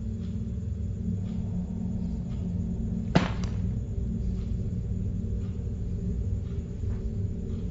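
Horror-film sound design: a low, steady rumbling drone with one sudden sharp hit about three seconds in.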